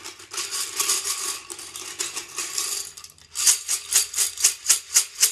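Small plastic tiles rattling inside a glass jar as it is shaken by hand. A continuous jumbling rattle breaks off about three seconds in, then picks up again as rhythmic shakes, about four a second.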